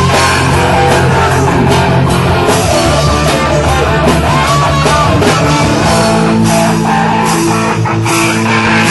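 Live rock band playing: an electric guitar through an amplifier, with bending lead notes over a drum kit and bass.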